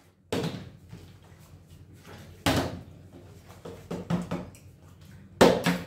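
Partly filled plastic water bottle being flipped and knocking down onto a wooden tabletop: a thud about a third of a second in, another about two seconds later, and a louder knock near the end.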